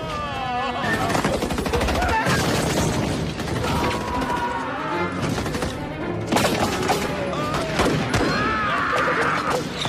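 Battle sound effects: dense rifle and machine-gun fire in quick shots, mixed with explosions, men shouting and film score music.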